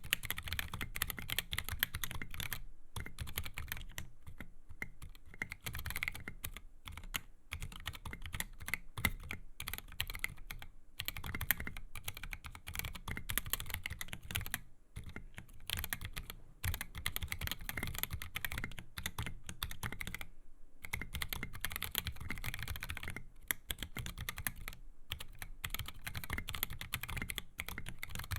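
Continuous fast typing on a custom mechanical keyboard in a top-mount XD84 case, with stock 62g Durock Koala tactile switches under SA MaxKey keycaps and lubed Everglide stabilizers: a dense stream of keystroke clacks, broken by a few brief pauses.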